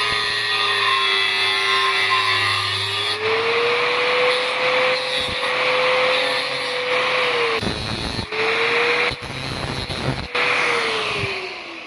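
A handheld power tool running, with a steady motor whine over a rough grinding hiss, as in rust removal on metal. The pitch dips and recovers a few times under load, and near the end the motor winds down.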